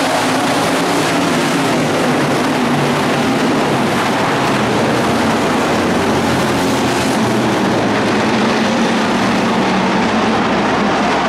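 A field of IMCA Hobby Stock race cars running at speed on a dirt oval: several engines at once in a loud, steady roar, their pitches shifting as the cars go by.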